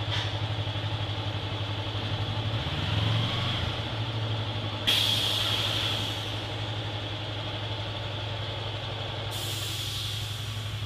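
Steady low machine hum from a motorcycle roller brake-test stand, swelling briefly about three seconds in. Two sudden sharp hisses, like air being let out, come about five seconds in and again near the end, each lasting about a second.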